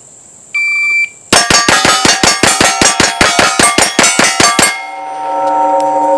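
Shot-timer start beep, then 18 rapid shots from a gold-plated 2011 pistol in just over three seconds, with the steel targets clanging as they are hit. A steady ringing tone swells in as the string ends.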